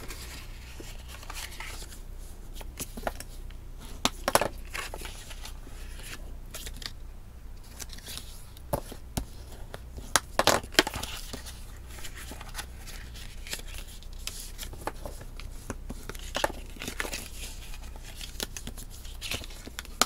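Cardstock being handled and folded along its score lines, with a bone folder rubbing and pressing the creases flat: scattered papery rustles and sharp crackles, the loudest about four seconds in and again around ten seconds in.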